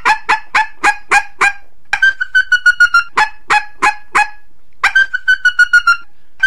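Female coyote estrus chirps, the mating-season call of a female in heat that draws in males: runs of short, high chirps about three to four a second over a held high note that sinks slightly through each run, broken by two short pauses.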